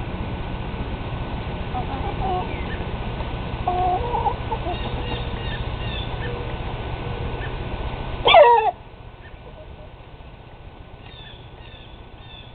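Rooster clucking softly now and then over a steady low background rumble. About eight seconds in comes one short, loud burst from the bird, after which the rumble drops away suddenly. Faint high chirps come and go.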